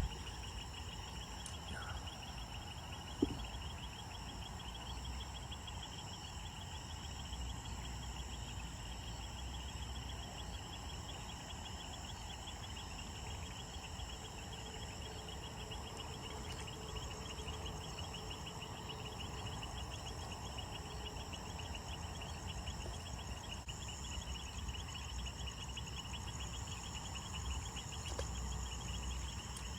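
Night chorus of insects: several steady, fast trills at different high pitches going on together over a low rumble, with a single sharp knock about three seconds in.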